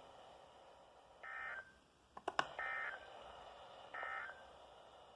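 EAS end-of-message signal from a NOAA Weather Radio broadcast: three short bursts of SAME digital data tones, each about a third of a second long and a little over a second apart, marking the end of the alert. A couple of sharp clicks fall between the first and second burst.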